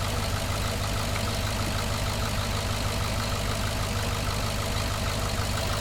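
Cadillac V8 engine idling steadily. The engine has set misfire codes for cylinders 1 and 7 plus a random misfire even with new coils and MAP sensors fitted.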